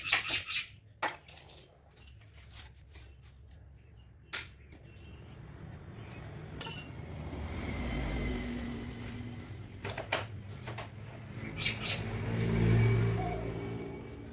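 Several sharp metallic clicks and clinks, then a Yamaha R15 V3's single-cylinder engine rising and falling in two slow swells.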